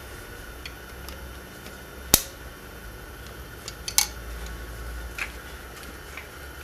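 Two sharp clicks about two seconds apart and a few fainter ticks over a low steady hum: small handling sounds from work on a water pump's rubber coolant hose and its clamp.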